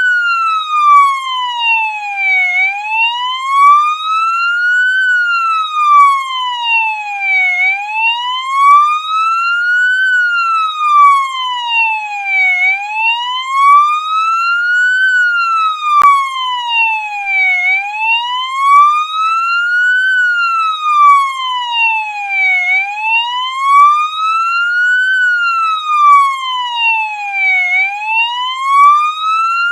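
Police siren sounding a slow wail: a single tone rising and falling steadily, one full sweep up and down about every five seconds, repeating evenly.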